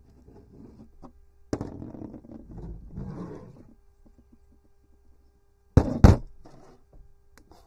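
Hands working at a hose end on a folding table with small rustling and handling noises, then about six seconds in two loud, sharp knocks as a pair of scissors is set down on the table close to the microphone.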